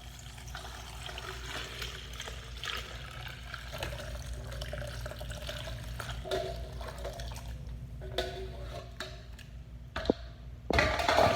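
Cooked chilies and their liquid being poured and sloshed into a blender jar, with light knocks of utensils and a louder clatter near the end.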